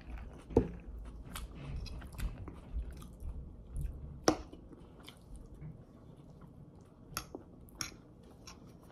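Close-miked chewing of a mouthful of pad thai noodles, with soft, irregular mouth clicks and a couple of sharper clicks of a metal fork against the plate, about half a second in and again about four seconds in.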